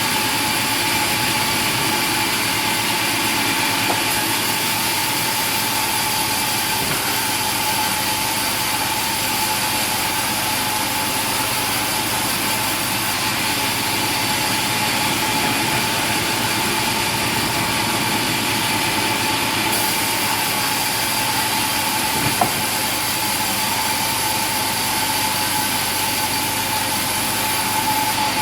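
A machine running steadily: an even mechanical noise with a constant whine over it. A single knock comes about twenty-two seconds in.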